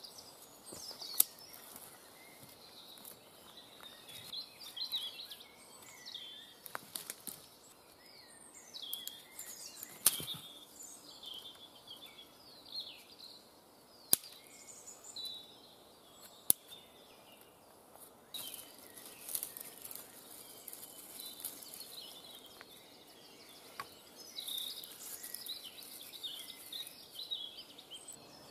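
Woodland birdsong of many short chirps, with about five sharp cracks of dry sticks being snapped and the rustle of twigs being handled and stacked into a fire lay, the rustling busier in the second half.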